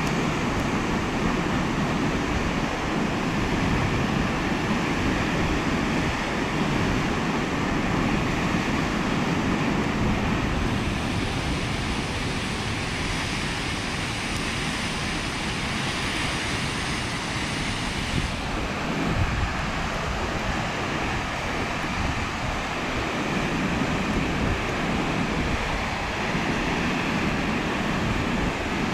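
Steady, continuous rush of a waterfall, an even wash of falling water. About a third of the way in a brighter hiss joins it and cuts off suddenly some seven seconds later.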